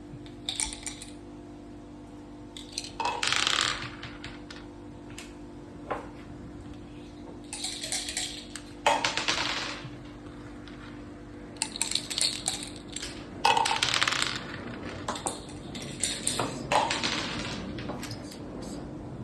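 Mak saka (Thai backgammon) play: about four bouts of clattering as dice are thrown and hard counters are clicked across the board, over a steady low hum.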